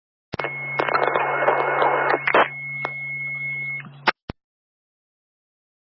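Police radio transmission heard through a scanner: it keys up with a click, carries about four seconds of hiss and crackle with a steady high whine and a low hum but no clear words, and drops out with a squelch click.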